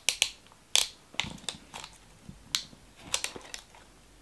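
Plastic wrapping on a toy box crackling in short, sharp, irregular crinkles as fingernails pick at it to peel it open.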